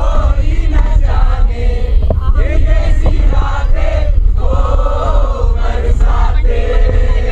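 A busload of passengers chanting and singing together, led by a man in the aisle, with long held notes in the second half, over the steady low rumble of the bus.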